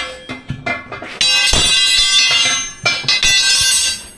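Steel tire irons working a trailer tire's bead off a steel wheel rim by hand: a few light clinks, then a loud, steady metallic ringing of many high tones, held for over a second, twice.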